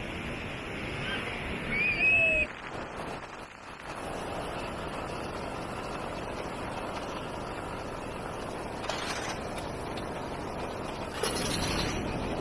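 Steady outdoor wind and sea-surf noise with wind buffeting the microphone. There is a short, high, upward-gliding chirp about two seconds in, and louder gusts near the end.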